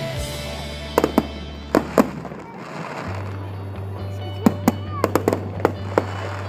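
Fireworks going off in a string of about a dozen sharp bangs, some in quick clusters, over music with steady low bass notes.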